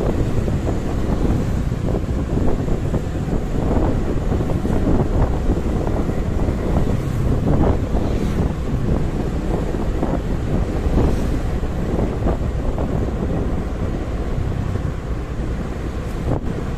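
Heavy wind buffeting the microphone of a moving motorcycle, a steady low rumble with engine and road noise underneath.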